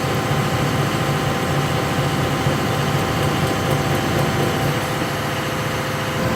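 Komatsu PC238 excavator's diesel engine running steadily under hydraulic load while the Rototilt R6 tiltrotator's pulse function is worked.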